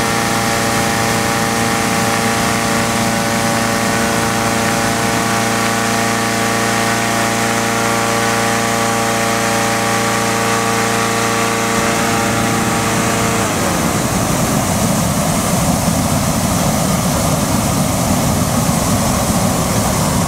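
Engine-driven inflator fan running steadily, blowing air into a hot air balloon envelope. About two-thirds of the way through, the balloon's propane burner fires and its steady rushing flame noise takes over.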